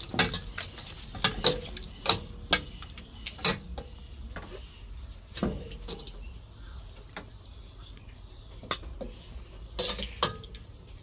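Irregular clinks and taps of cutlery against dishes, coming thick in the first few seconds and then sparser.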